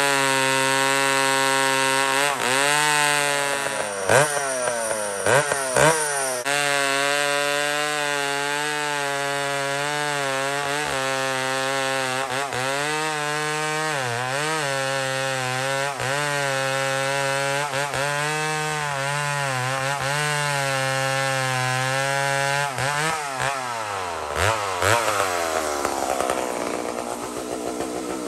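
McCulloch Mac 125 SP two-stroke chainsaw running at full throttle through a large log, its note sagging and recovering again and again as the chain bites under load. Near the end the engine note drops away as the saw comes out of the cut.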